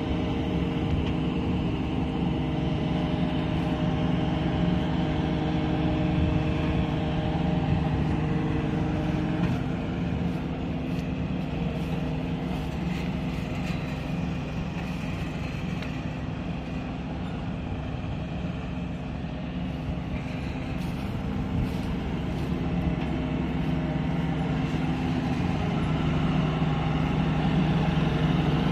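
Steady machinery drone from a horizontal hydraulic straw baler, its electric motor and hydraulic pump running, mixed with the diesel engine of the wheel loader feeding it straw.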